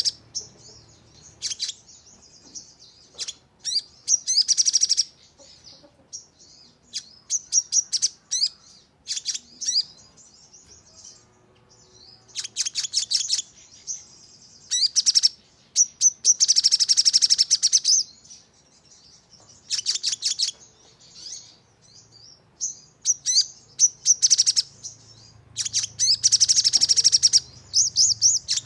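Sogon songbird singing in fast bursts of sharp, high-pitched notes packed close together, each burst a second or two long, returning every few seconds with single chirps in between. This is the rapid 'nembak' song used as a lure to set other sogon singing.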